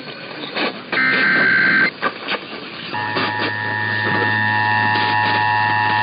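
Emergency Alert System test signal received over AM radio. A harsh digital warble of SAME header data lasts about a second, and about three seconds in the steady two-tone attention signal (853 and 960 Hz) starts. Crackling AM static and a low hum lie under both.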